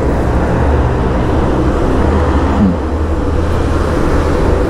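Steady road traffic noise from passing vehicles, with a constant low drone of engines and tyres.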